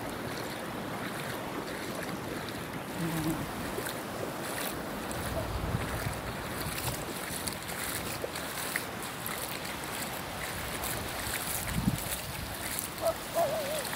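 Wind buffeting the phone's microphone in gusts over the steady wash of small waves lapping in shallow sea water.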